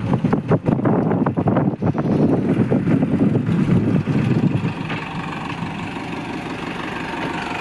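Small motorcycle engine running roughly and unevenly, then settling to a steadier, quieter idle about five seconds in.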